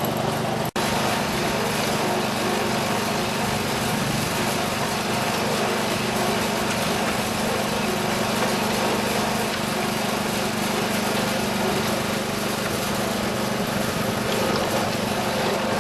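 Small engine running steadily at a constant speed, with a momentary dropout under a second in.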